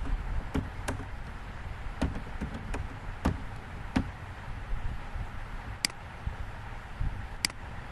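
Computer keyboard keys tapped in an irregular run of clicks, then two sharper mouse clicks near the end, over a steady low background hiss.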